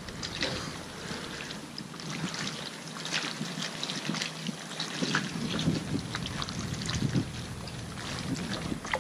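Water lapping and splashing against a kayak hull, with small scattered knocks and rustles of handling, and wind buffeting the microphone.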